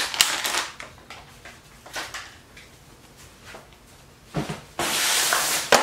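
Crinkling of a soft plastic pack of disinfecting wipes as a wipe is pulled out and handled, with scattered rustles and clicks. About a second of steady hiss near the end, ending in a sharp click.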